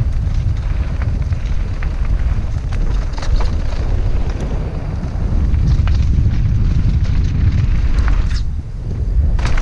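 Wind buffeting a helmet-mounted camera's microphone as a mountain bike descends fast, with a steady low rumble from tyres on dry dirt and loose rock. Scattered sharp clicks and knocks from the bike and trail run through it, with a cluster near the end.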